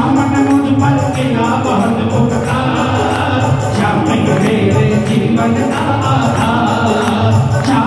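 Amplified live Hindi devotional bhajan: singing over band music with a steady beat and jingling percussion.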